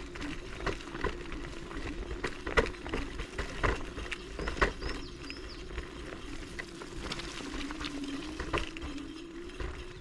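Techlife X7S electric scooter ridden over a muddy, rough forest track: a steady motor whine that wavers slightly with speed, with irregular knocks and rattles as the small wheels hit bumps and stones.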